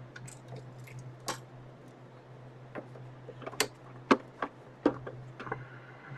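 Irregular sharp clicks and knocks from hands working on parts inside an open desktop PC, the loudest clustered about three and a half to five seconds in, over a steady low hum.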